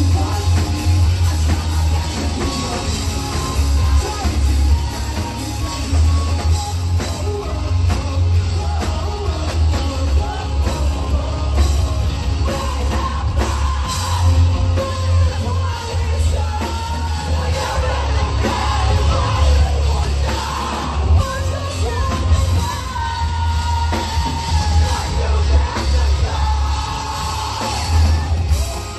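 Live pop-punk band playing: electric guitars, bass and drums with the lead singer singing and shouting, recorded from within the crowd with heavy bass.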